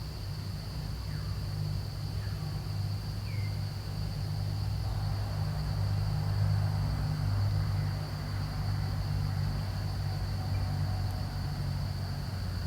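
Steady high-pitched insect drone over a louder low rumble, with a few faint short downward chirps.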